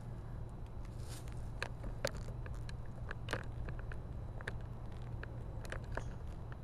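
Irregular light clicks and ticks, about fifteen of them, the sharpest about two seconds in, over a steady low hum.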